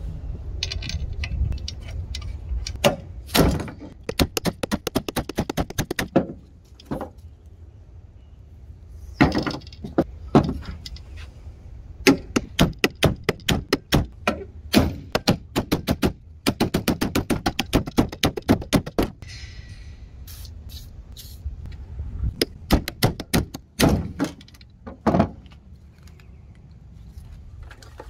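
Steel hand hammer tapping on a 2003–2006 Toyota Corolla alternator's metal casing in rapid runs of light knocks, about seven a second and lasting a few seconds each, with heavier single knocks in between.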